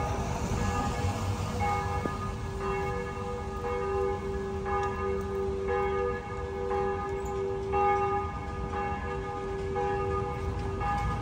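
Church bells ringing, struck about once a second, each stroke's tones hanging on until the next.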